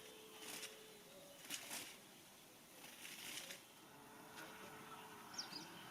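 Near silence: a faint outdoor background with a few soft rustles.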